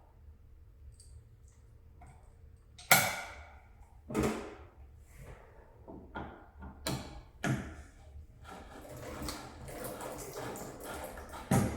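About five sharp knocks and clanks, the first the loudest, from hands and tools working on a kitchen faucet. A steady rushing noise then builds from about eight and a half seconds in.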